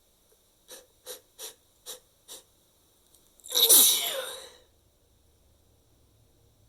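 A person sneezing: five short, sharp breaths about half a second apart, then one loud sneeze about a second later.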